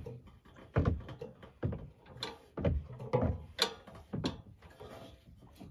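A run of about seven irregular knocks and clanks: metal parts and wrenches being handled and bolted while the wheel kit goes onto a portable generator frame.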